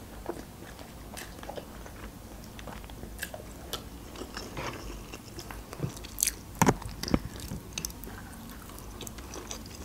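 Close-up eating sounds: a person chewing and biting instant noodles and salami, with scattered wet mouth clicks. A few sharper, louder clicks come about six to seven seconds in.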